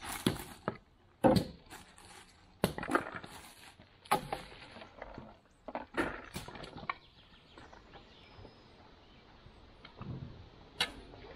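Firewood being handled: a series of sharp, irregularly spaced wooden knocks and clatters, the loudest about a second in, thinning out after about seven seconds with one more knock near the end.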